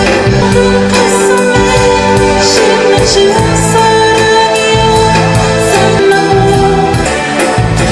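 Music with singing and a steady beat, played at a constant loud level.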